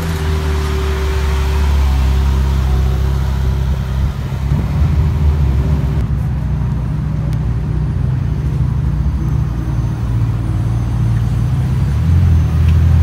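Mid-engined supercar V8s running at low speed, a steady deep idle with no hard revving: first a Ferrari 458 Spider, then a McLaren 720S's twin-turbo V8 as it rolls slowly.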